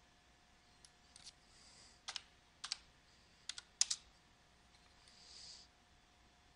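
Faint computer keyboard and mouse clicks: about ten sharp clicks, several in quick pairs, spaced unevenly as settings are entered in a software dialog.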